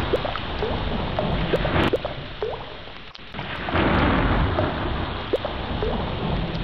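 Heavy rain with rolling thunder. The rumble swells, drops away about three seconds in, then builds again, with short high plinks scattered through the downpour.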